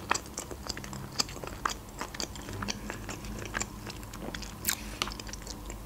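Close-miked chewing of food, with irregular small crunches and wet mouth clicks.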